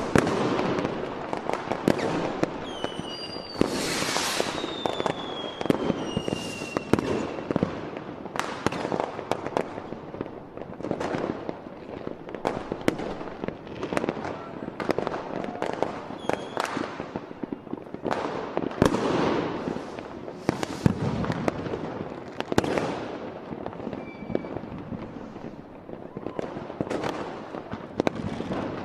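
New Year's Eve fireworks going off in many places at once: a dense, irregular barrage of bangs and firecracker cracks, with several whistling fireworks whose whistles fall in pitch a few seconds in.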